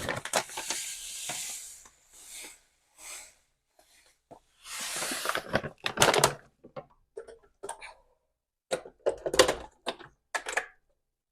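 Kitchen handling sounds: sugar poured into juice with a soft hiss, twice, and scattered knocks and clatters of containers and utensils being handled and set down.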